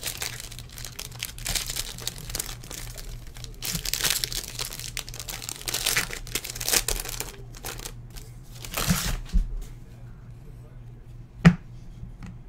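Foil wrapper of a trading-card pack crinkling and tearing as it is pulled open by hand, in rustling bursts for the first seven seconds or so, then a few softer crinkles and one short tap about eleven seconds in.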